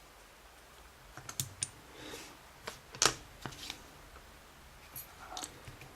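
Small sharp metal clicks and light scrapes from a padlock being taken apart by hand, a handful of irregular ticks with the loudest about three seconds in.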